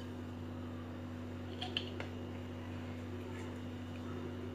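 Quiet room tone with a steady low hum, and a couple of faint light ticks a little under two seconds in.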